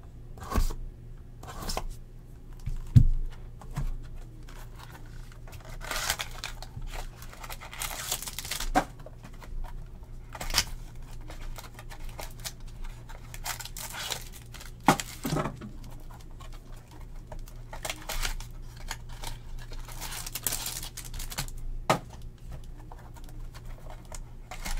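Trading-card foil packs and box wrapping torn and crinkled by hand, with rustling and light taps as boxes and cards are handled on the table. A sharp knock about three seconds in.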